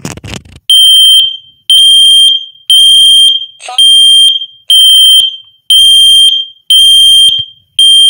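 Kidde P4010DCSW wireless photoelectric smoke alarm sounding during its push-button self-test: a loud, piercing high beep about once a second, eight times. A short rustle of handling noise comes just before the first beep.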